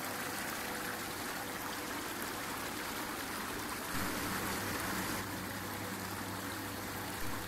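Water in a Bestway Lay-Z-Spa Palm Springs inflatable hot tub bubbling and churning steadily under its air-only bubble massage, with a steady low hum beneath. It gets a little louder about four seconds in.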